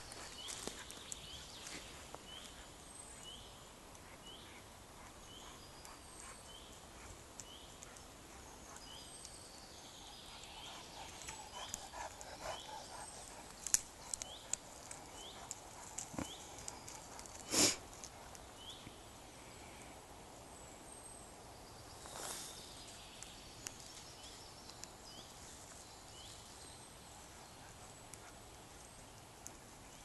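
A dog rummaging and sniffing through dry brushwood and forest litter, with scattered twig clicks and rustles and two short bursts of noise, the louder about two-thirds of the way in. A high chirp repeats about twice a second through the first half.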